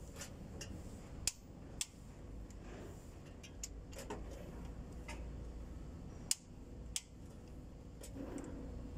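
Long-handled ratchet wrench working a cylinder head bolt on a truck diesel engine: sharp metallic clicks at irregular intervals, four of them loud, with fainter ticks in between.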